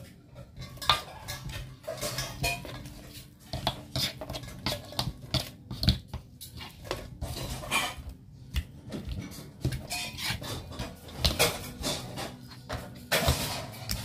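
A metal spoon scrapes and clinks against a black metal pan while stirring chicken pieces into a thick spice paste, in repeated irregular clinks and scrapes.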